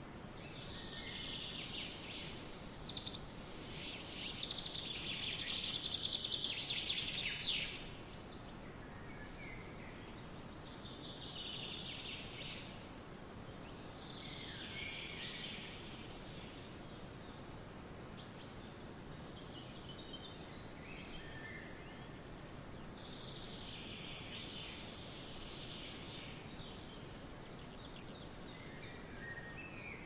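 Small waves washing up on a sandy beach, the surf hiss swelling and fading several times, loudest about six to seven seconds in.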